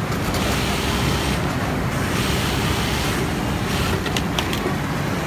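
Brother industrial single-needle sewing machine stitching a fabric strip, over a steady background rumble, with a few sharp clicks about four seconds in.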